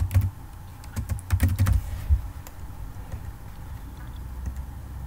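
Typing on a computer keyboard: a quick run of keystrokes in the first two seconds, then only a few scattered taps.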